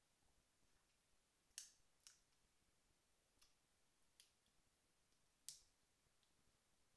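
Crab leg shells cracking and snapping apart by hand: about five faint, sharp clicks at uneven intervals, two of them louder than the rest.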